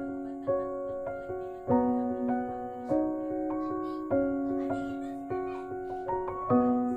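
Background piano music: a slow melody over chords, a new chord struck about every second and a bit.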